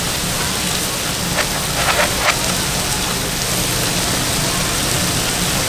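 Steady sizzling hiss of meat frying on a flat-top griddle, played backwards, with a few faint clinks a second and a half to two and a half seconds in.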